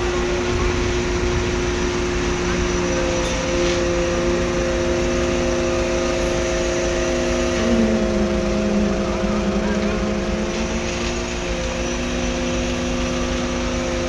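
Engines of the concrete pumping machinery running steadily during a concrete pour, several machine tones sounding at once, one shifting slightly in pitch about halfway through.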